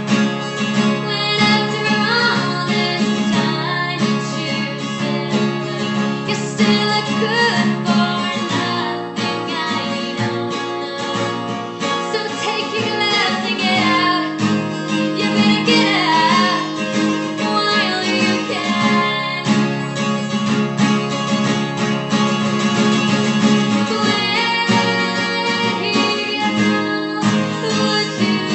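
A song: acoustic guitar with a singing voice.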